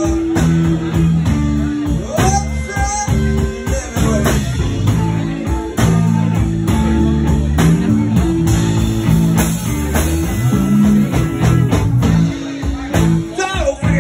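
Electric guitar playing blues live through an amplifier, with some notes bent in pitch and a voice singing along at times.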